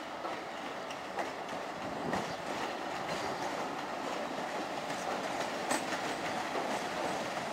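CFR diesel-hydraulic locomotive hauling a passenger train as it approaches over station trackwork. A steady rumble of engine and wheels, with a few sharp clacks from wheels over rail joints or points, growing slightly louder.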